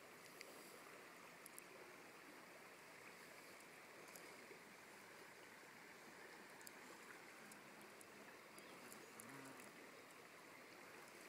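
Faint flowing river water with a few light, high ticks.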